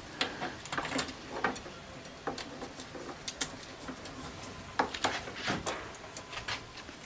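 Irregular light clicks and taps of metal hardware as a bar drawer pull is fitted to a cabinet drawer front, its screws worked in by hand from inside the drawer. A few louder knocks come about five seconds in.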